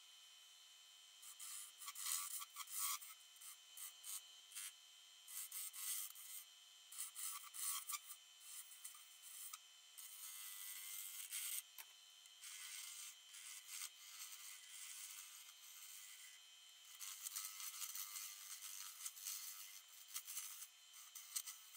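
A turning tool cutting into a spinning silver maple blank on a wood lathe: irregular bursts of scraping and shaving over a steady whine from the lathe, busier for the last few seconds.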